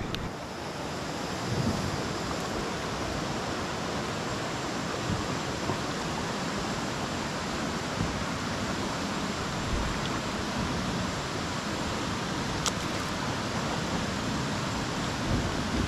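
Steady rush of flowing creek water, with one sharp click near the end.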